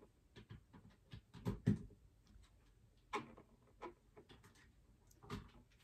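Light, scattered knocks and clicks of small objects being handled on a tabletop, a few separate taps with the loudest cluster about one and a half seconds in.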